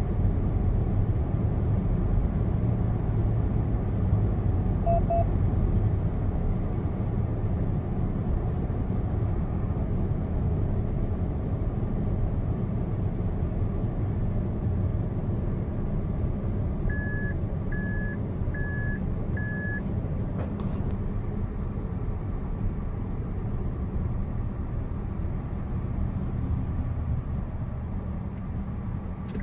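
Steady road and engine noise inside a car's cabin at motorway speed. About seventeen seconds in, four short high electronic beeps sound about a second apart.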